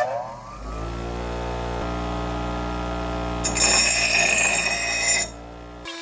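Electric grinder motor spinning up, its whine rising and levelling off about a second in, then running steadily. From about three and a half to five seconds in, the steel axe head is ground against the wheel, a harsh hiss over the motor. The motor hum drops out near the end.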